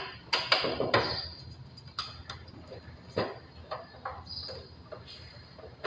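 Plastic drain tray of a split air-conditioner indoor unit being pressed and knocked into its retaining clips: a series of sharp plastic clicks and knocks, most of them in the first second and a few more spaced out after.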